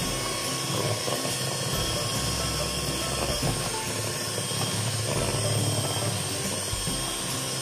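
Electric hand mixer running steadily, its beaters whisking eggs into creamed margarine-and-sugar cake batter in a bowl.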